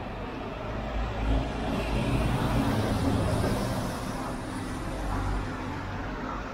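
A car passing on the street beside the walker. Its engine and tyre noise swell for a couple of seconds and then fade away.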